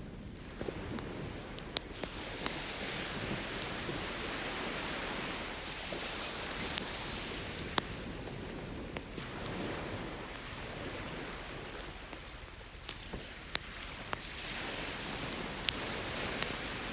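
Campfire crackling with sharp pops scattered through, over ocean waves washing in and out, swelling and falling back every several seconds.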